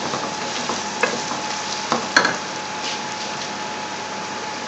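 Chopped onions and whole spices sizzling in hot oil in a metal pot while a wooden spoon stirs them, knocking against the pot a few times about one and two seconds in.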